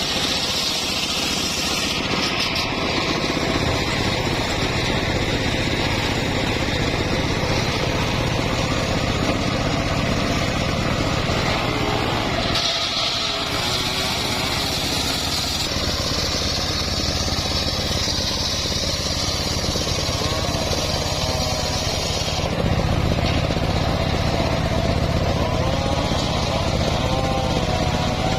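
Homemade circular saw rig running with a steady motor drone, and a higher hiss when the blade is cutting into wood: briefly at first, then again for several seconds around the middle.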